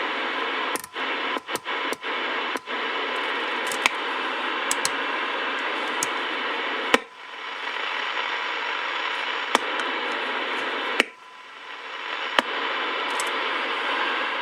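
Receiver static from the Galaxy DX979 CB radio's internal speaker: a steady hiss with the squelch open, now playing after the speaker fault was bypassed with a jumper wire. Sharp clicks break in, and twice the hiss drops out briefly and swells back.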